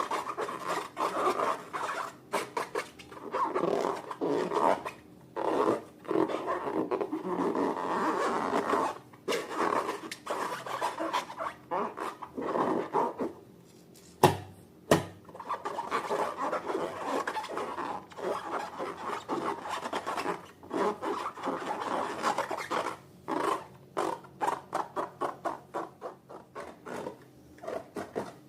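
Slime being squeezed, stretched and worked by hand, a sticky rubbing and rasping in irregular strokes that quicken into a rapid run near the end. Two sharp clicks come about halfway through, less than a second apart.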